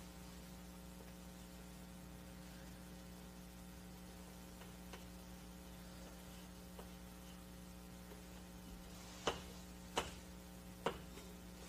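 Steady electrical mains hum under quiet room tone, with three short, sharp clicks less than a second apart near the end.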